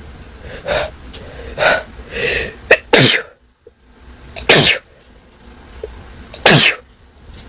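A person in a sneezing fit: a few shorter build-up sounds, then three loud sneezes in a row, about one and a half to two seconds apart.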